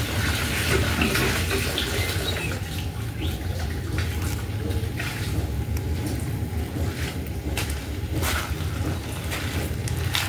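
Rain falling: a steady patter with scattered sharper drop taps.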